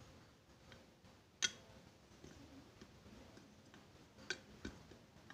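Sharp clicks of slate pencil pieces against a stainless steel bowl as they are picked out by hand: one loud click with a brief metallic ring about one and a half seconds in, two more a little before the end, and fainter ticks between.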